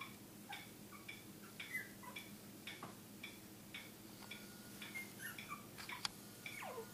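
Faint clock ticking steadily, about two ticks a second, with a short falling whimper from a Maltipoo puppy near the end.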